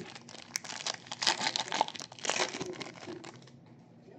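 Plastic-foil trading card pack wrapper crinkling and tearing as it is ripped open by hand, loudest in the middle.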